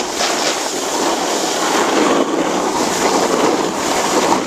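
Snowboard sliding and scraping over hard-packed snow, with wind rushing over the handheld camera's microphone, a steady loud rushing noise.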